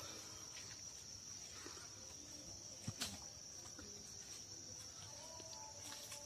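Steady high-pitched drone of insects, with a single sharp knock about three seconds in.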